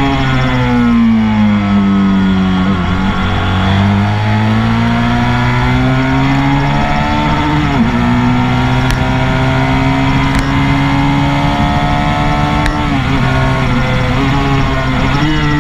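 Motorcycle engine at speed, heard from a handlebar-mounted camera with wind noise. The revs fall off, climb again under throttle, dip sharply about 8 seconds in as it shifts up, then fall away and rise once more near the end.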